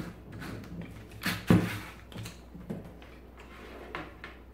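Scattered knocks and clicks of parts being handled and screwed in while a mitre saw is assembled, the loudest knock about one and a half seconds in.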